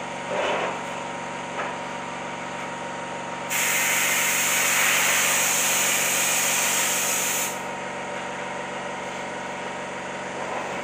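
Compressed-air spray gun hissing while its trigger is held for about four seconds, starting and stopping abruptly, over the steady hum of a running machine, likely the air compressor feeding it.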